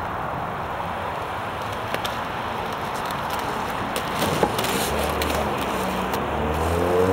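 Steady rushing roadside noise of traffic and skate wheels rolling on tarmac, with a few sharp knocks. Near the end a car engine is heard, its pitch rising.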